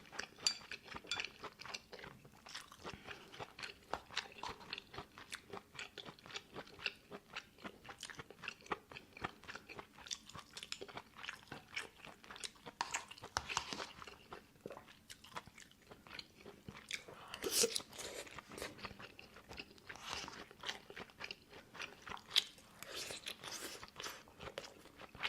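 A person chewing crunchy food close to the microphone: irregular crisp crunches and mouth clicks, with a couple of louder crunches in the second half.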